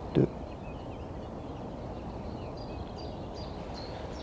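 Steady low outdoor background noise with faint, short, high bird chirps through the second half, and one brief low sound just after the start.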